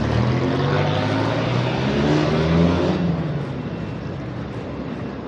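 A motor vehicle's engine accelerating past, its pitch climbing steadily for about three seconds, then fading away over steady street traffic noise.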